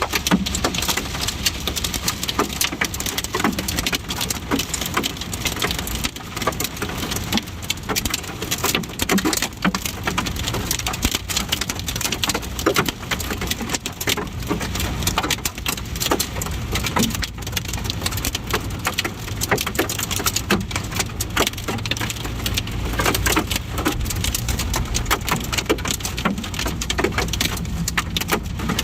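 Heavy rain falling: a dense, steady patter of drops with many sharp individual hits. Under it runs a low rumble that grows stronger in the second half.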